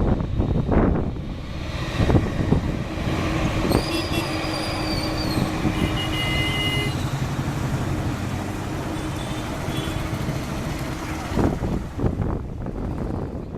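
Steady low engine rumble of a heavy vehicle, with a short high whine that rises and falls about four seconds in.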